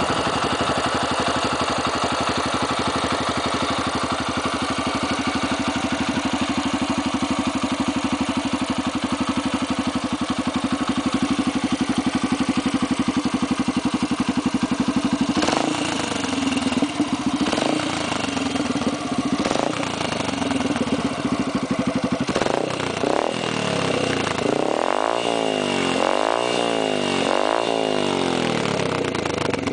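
Yamaha XTZ 125 single-cylinder four-stroke engine breathing through an aftermarket aluminium exhaust. It idles steadily for about fifteen seconds, then is revved in a series of throttle blips, coming quicker and closer together near the end.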